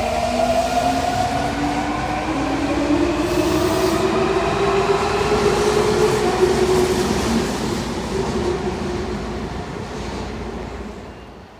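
Toei Mita Line subway train pulling out of the platform: the electric motors whine in several tones that rise slowly in pitch as it accelerates over the running and rail noise, then the sound fades away about eleven seconds in.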